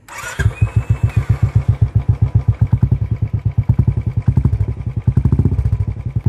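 Royal Enfield Bullet Classic single-cylinder engine starting, through a Sans short-bottle glasswool silencer. It catches about half a second in and then runs with a steady, bassy beat of exhaust pulses.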